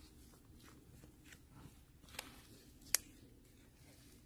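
Quiet sounds of a spatula pushing thick brownie batter out of a bowl into a metal baking pan, with two sharp clicks about two and three seconds in.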